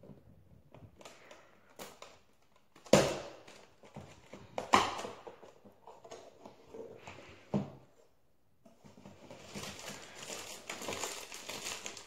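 Cardboard advent calendar box handled while a perforated door is worked open: a few sharp knocks and pops, the two loudest about three and five seconds in, then from about nine seconds in a steady crinkling rustle of packaging as the door comes open.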